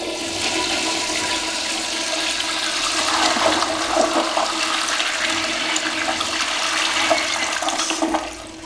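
Flushometer-valve flush of a 1950s Crane Santon toilet: a loud, steady rush of water through the bowl with a thin steady tone under it. It drops off sharply about eight seconds in.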